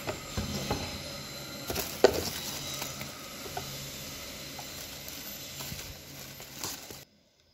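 Plastic wrapping and paper crinkling and rustling as shrink-wrapped manuals are handled in a cardboard box, with a sharp knock about two seconds in. The sound cuts off suddenly near the end.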